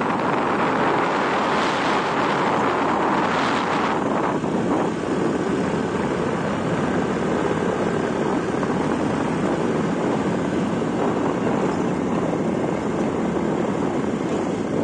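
Steady rush of wind buffeting a phone's microphone on a moving motorcycle, mixed with the bike's engine and road noise, a little gustier in the first few seconds.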